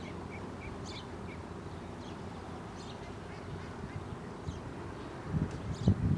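Ducks quacking, faint short calls about once a second over a steady outdoor background. Louder rustling and knocks come in near the end.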